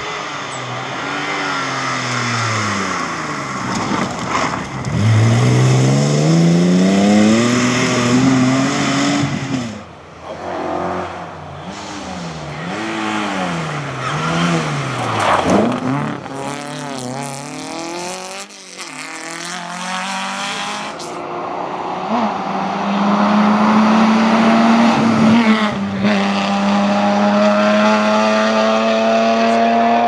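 Classic rally cars at racing speed on a tarmac stage, one after another. Each engine climbs hard in pitch through the gears and drops sharply when the driver lifts off for a corner.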